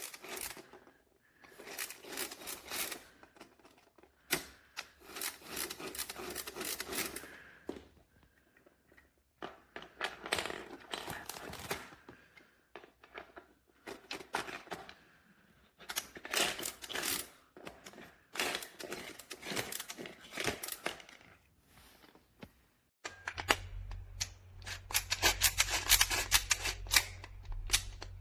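Hard plastic pieces being handled, clicking and rattling in bursts of a few seconds with short pauses. About three-quarters of the way through, a steady low hum starts and the clicking becomes faster and denser.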